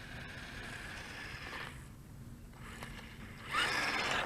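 Small 1:16-scale RC truck's electric motor and gears whining faintly as it drives. About three and a half seconds in comes a louder rush of motor and tyre noise with a rising whine, as it speeds up.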